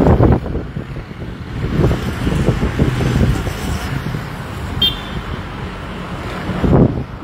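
Road traffic on a city street, a steady low rumble that swells near the start and again near the end. A short high beep sounds about five seconds in.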